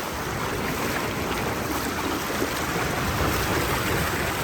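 Steady rush of moving water, a river current and surf, with wind buffeting the microphone.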